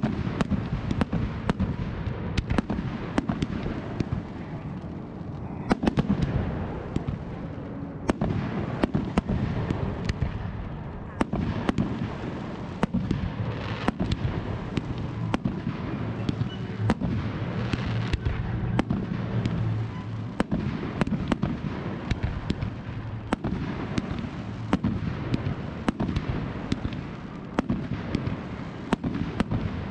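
Professional fireworks display: aerial shells and comets launching and bursting in quick succession, many sharp bangs and crackles over a continuous rumble.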